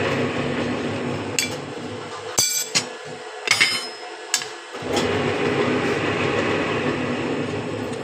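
Steel flat bar clanking and clinking against a steel scroll-bending jig and table as a bent scroll is lifted off and a new bar is set in, about five sharp metallic hits with short ringing. A steady machine hum runs underneath, drops away during the clanks and comes back about five seconds in.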